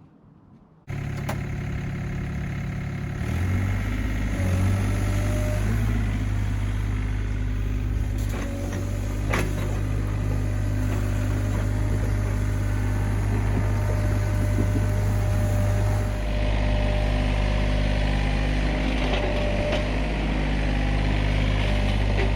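Sany SY35U mini excavator's diesel engine running steadily. It starts abruptly about a second in and grows louder about three seconds in.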